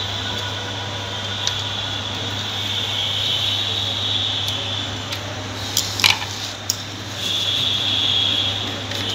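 A few light clicks of a screwdriver tightening a terminal screw on a plastic switch-socket, the clearest about six seconds in, over a steady hum and hiss that swells twice.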